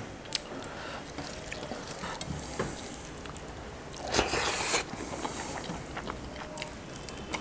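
Eating by hand from a steel plate: fingers working rice into curry, with small clicks and chewing noises, and a louder sound lasting under a second about four seconds in as a mouthful is taken.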